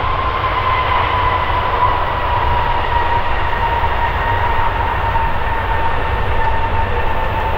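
Rolls-Royce Trent 700 turbofans of an Airbus A330-243 on its landing roll-out: a steady, loud jet rumble with a whine that slowly falls in pitch as the engines spool down.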